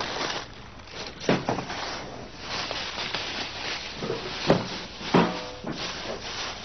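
Steady hiss of room noise broken by a few short knocks or clatters, about a second in and twice more later on.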